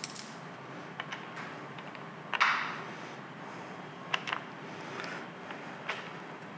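Steel parts of a Monarch lathe's power compound being handled: a ringing metal clink at the start, then scattered light clicks and taps, with a brief scrape about two and a half seconds in.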